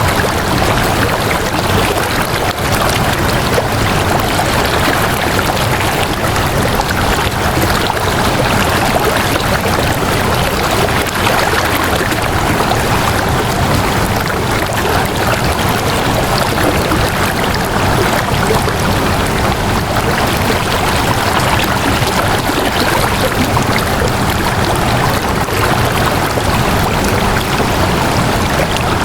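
Flowing water running steadily, like a stream, an even unbroken rush with no pauses.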